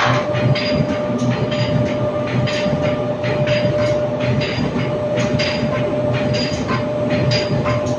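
Corrugated board sheet stacker running: a steady mechanical hum with a constant tone, under a rapid irregular clatter of clacks, about three a second.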